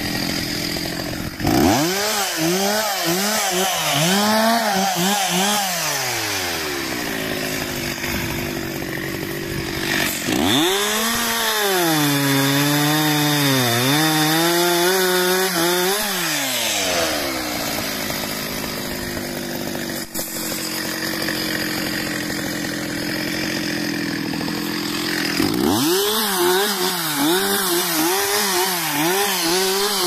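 Stihl MS 361 two-stroke chainsaw cutting wood at high revs, its pitch wavering and dipping as the chain loads up in the cut. The engine note is clearest in three stretches, about two seconds in, around ten seconds in and near the end, with steadier, less pitched running between them.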